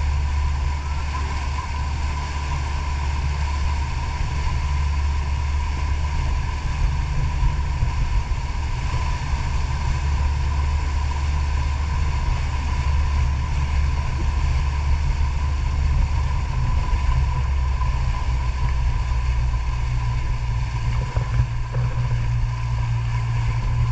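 Outboard motor of a towing motorboat running steadily at speed, with a steady low hum and a thin whine, over the rush of the churning wake.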